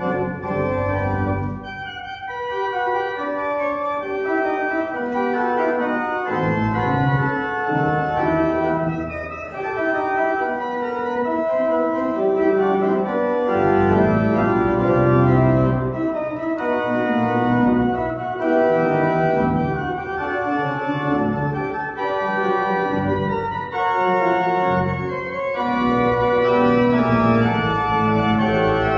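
Church organ playing the postlude that closes the service: held chords over changing bass notes, continuous and fairly loud.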